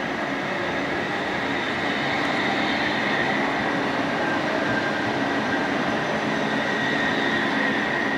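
CAF Urbos tram, running off its onboard supercapacitors, passing close by on street track: a steady rolling rumble with a thin high whine, growing a little louder after about two seconds as the cars go by.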